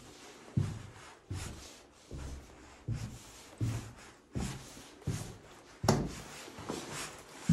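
Footsteps walking over a floor strewn with debris, about one step every three-quarters of a second, each with a scuff of grit and paper underfoot.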